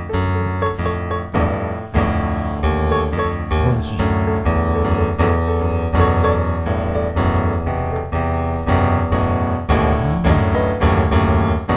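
Piano background music, with a steady run of notes.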